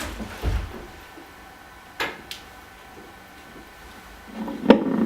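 A few scattered knocks and clicks in a small room: a dull thud about half a second in, two short sharp clicks about two seconds in, and a louder sharp knock near the end.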